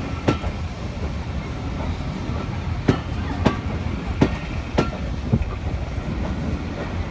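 Train rolling slowly past, its wheels clicking over the rail joints about every 0.6 seconds over a steady low rumble.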